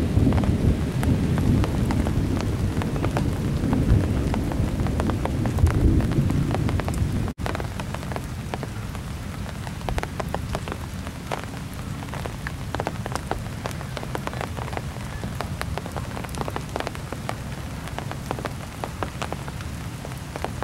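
Thunderstorm: a low rumble of thunder under heavy rain for the first seven seconds or so, cut off suddenly by a brief dropout. After that comes steady rain, with many separate drops ticking close to the microphone.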